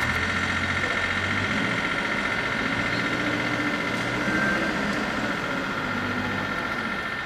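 Electric suburban train running, heard from on board: a steady high whine over a low rumble.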